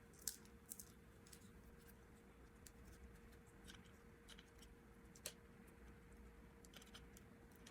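Near silence: faint scattered clicks and rustles of hands working electrical tape into a cracked plastic vacuum cleaner hose, over a faint steady hum.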